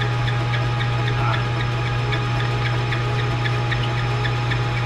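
Metal lathe running steadily: a constant motor hum with a regular light ticking, about two to three ticks a second.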